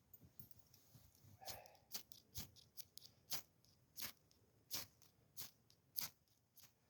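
A run of crisp crunches in a steady rhythm, about one every two-thirds of a second, starting about a second and a half in.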